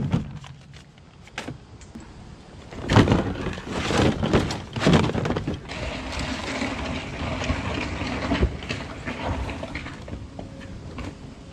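A few loud knocks as a plastic trash can and other items are handled, then a steady rough rumbling noise as the can is brought over.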